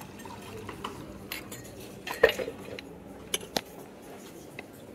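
Glassware and crockery clinking: a handful of sharp knocks and clinks, the loudest a little over two seconds in.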